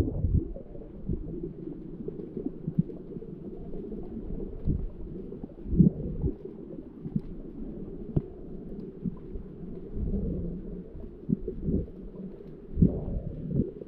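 Muffled underwater noise picked up by a camera on a selfie pole as a freediver swims: a low, dull rumble of moving water with scattered dull knocks, busier near the end.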